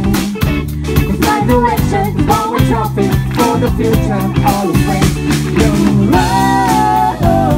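A live rock band playing: a male voice singing over electric guitar, electric bass and a drum kit keeping a steady beat, with a long held note about six seconds in.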